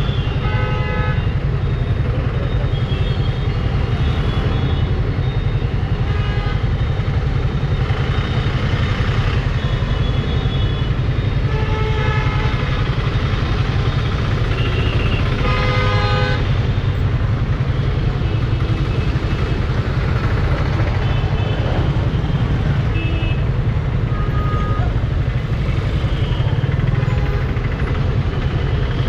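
Dense city traffic heard from a motorcycle crawling through a jam: a steady low engine rumble, with vehicle horns honking again and again, the loudest honks about 16 seconds in.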